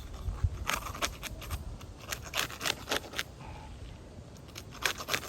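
Asphalt shingle's adhesive seal strip being pried and torn loose from the shingle below: irregular runs of sharp crackling snaps and scrapes, pausing briefly a little after the middle.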